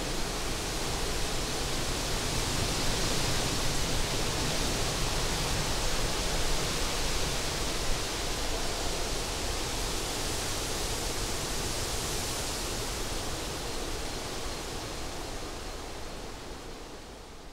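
Steady rushing hiss of outdoor nature ambience, with no distinct tones or events, fading out over the last few seconds.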